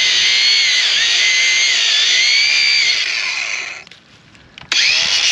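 Cordless angle grinder running under load, cutting through an old mooring rope, its high whine dipping in pitch as the disc bites. About three seconds in it is switched off and winds down. It starts again with a sharp rising whine near the end.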